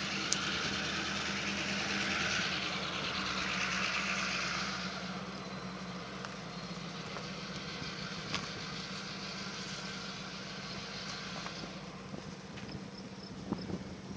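A steady engine hum, with a loud hiss over it that fades away about five seconds in.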